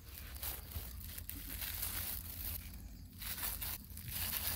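Thin disposable plastic glove crinkling and rustling as a gloved hand handles cooked rice, in uneven bursts that come and go.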